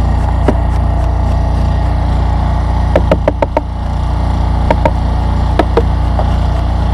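Portable generator engine running steadily, powering the honey pump that feeds syrup through the hose into the hives. A quick run of four sharp knocks about three seconds in, and a few single knocks later.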